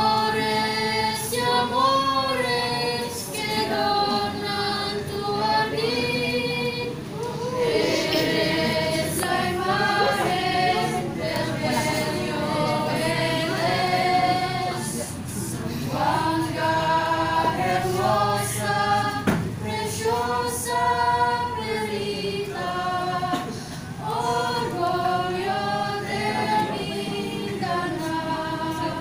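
A small group of student singers, mostly female voices with one male, singing a song a cappella, with no instruments, in long held notes that rise and fall.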